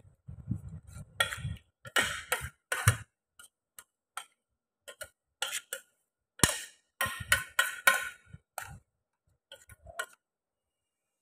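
Irregular clusters of short clicks, taps and crinkles from hands handling food in a stainless steel pot and on a plastic sheet, with a few soft low bumps near the start.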